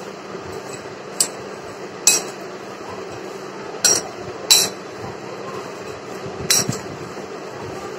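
Metal spoon clinking sharply against a glass bowl as crisp fried fusilli pasta is tossed with spice powder, five clinks at irregular intervals.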